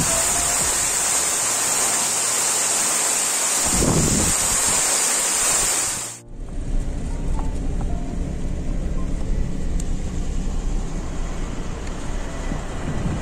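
Steady rushing of a roadside waterfall, a loud bright hiss. About halfway through it cuts off abruptly and gives way to a lower, duller rumble with wind noise.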